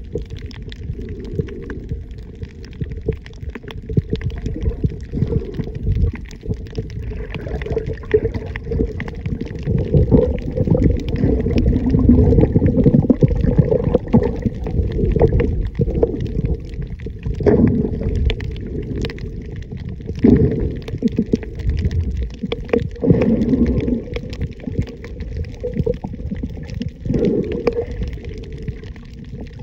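Muffled underwater sound of water moving around a camera held below the surface: a low, steady rumble with irregular swells and gurgling.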